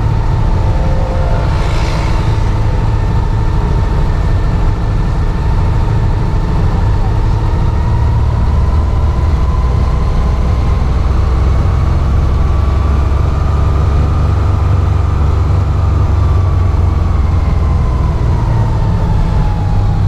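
Car driving along: a steady, loud low rumble of engine and road noise, with a faint whine that rises slowly past the middle and falls again near the end.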